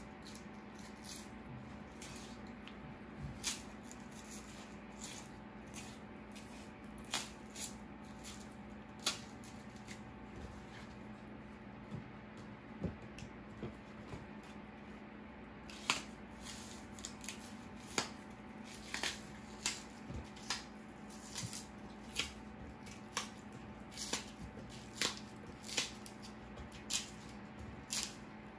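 Elephant ear leaf stalks being peeled by hand: crisp snaps and tearing of the fibrous skin, an irregular run of sharp clicks every second or two, coming more often in the second half, over a steady low hum.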